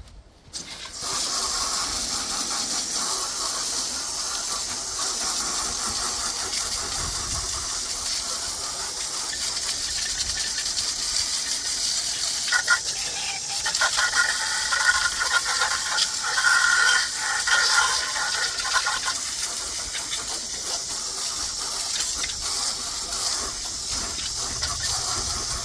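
Garden hose spraying water onto a chrome wheel and tire, rinsing off the scrubbed-loose dirt: a steady hiss of spray that starts about a second in, its tone changing for several seconds midway.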